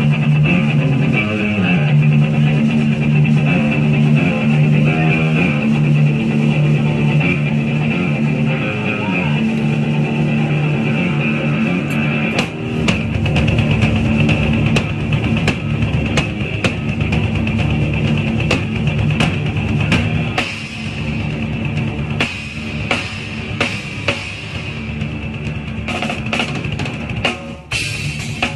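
Live rock band playing: sustained electric guitar chords ring for about the first twelve seconds, then a drum kit comes in hard with a steady beat of snare, kick and cymbal hits under the guitar.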